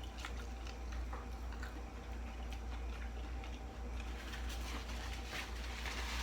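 A person eating shrimp boil: soft chewing with scattered small mouth clicks, over a steady low hum.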